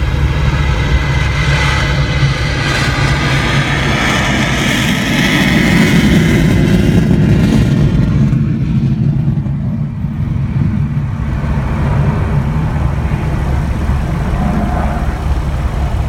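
Aircraft engine running with a steady low drone, while a louder, higher rushing sound swells over the first several seconds and falls away about eight seconds in.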